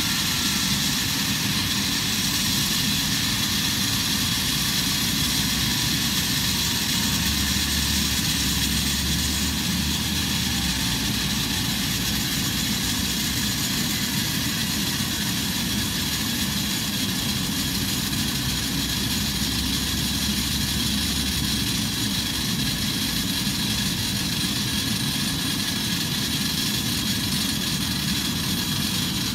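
Airbus A319's jet engines idling steadily with the aircraft at a standstill: a constant high whine over a rushing, rumbling noise.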